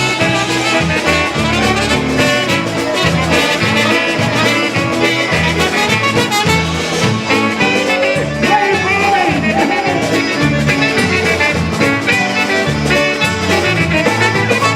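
Live polka band playing an instrumental break with no singing, brass carrying the tune over a steady pulsing bass beat.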